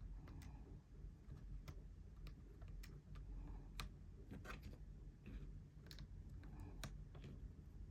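Faint, unhurried typing on a GMMK Pro mechanical keyboard with Glorious Panda tactile switches: about a dozen single keystrokes at irregular intervals, each a short separate click.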